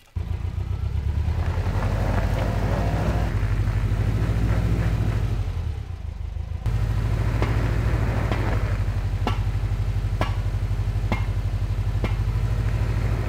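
A car engine running steadily under load as a stuck vehicle is tried again against a tensioned recovery strap. Its level dips briefly about six seconds in and then picks up again. A few sharp ticks come in the second half, about a second apart.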